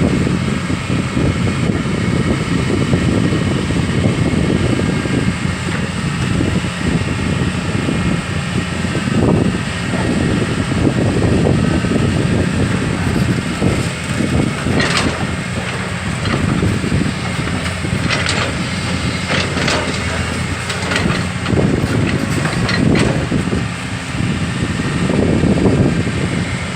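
Excavator's diesel engine running steadily while it digs, with a few sharp clanks and scrapes from the bucket scattered through.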